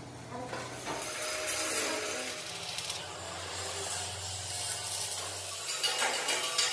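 Electric arc welding on steel plate: a continuous crackle and sizzle from the arc over a steady low hum.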